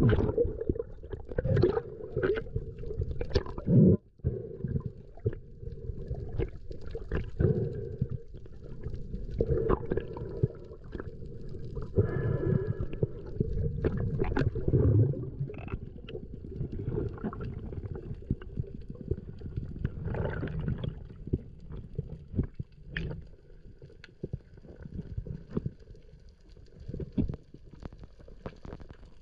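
Muffled underwater sound: water gurgling and rumbling, with scattered short clicks and knocks throughout.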